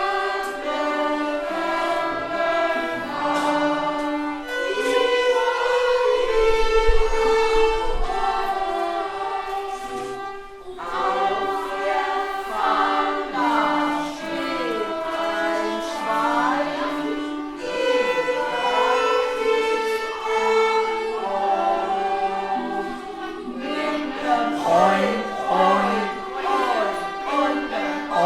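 Music with a choir of voices singing over string instruments, with several notes sliding up and down.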